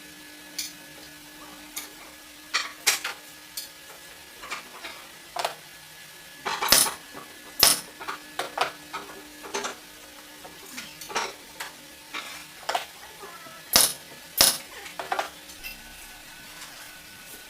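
Irregular sharp taps, knocks and clicks of wooden parts being handled and fitted together, the loudest a third of the way in and again about three quarters through, over a faint steady hum.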